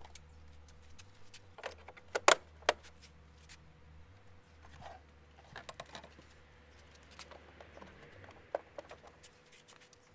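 Irregular clicks, knocks and rustles of items being handled in a cardboard box, with two sharp knocks about two seconds in, over a faint steady low hum.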